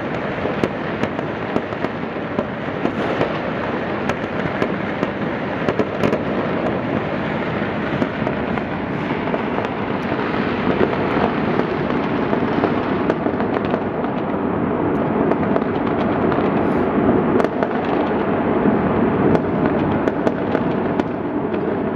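Many fireworks and firecrackers going off at once, blending into a dense, unbroken crackle with sharper bangs standing out here and there. It grows slightly louder in the second half.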